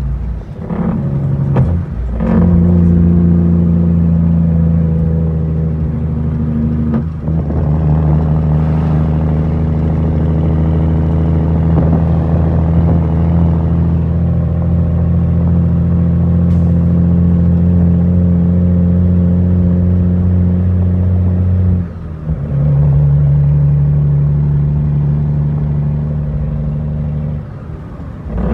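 Cummins M11 diesel engine of an International 9200 truck pulling steadily, heard from inside the cab. Its note drops away briefly several times and comes back at a different pitch, as the gears are shifted.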